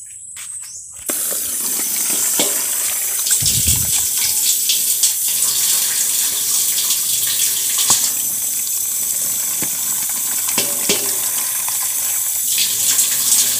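Running water falling in a steady stream into a metal basin, starting about a second in, while eel pieces are rinsed and sloshed in a plastic tub and its water is poured out. A single low bump comes about three and a half seconds in.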